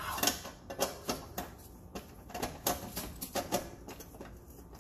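Hand screwdriver driving a screw into a sheet-metal gas vent connector: a run of irregular metal clicks and taps.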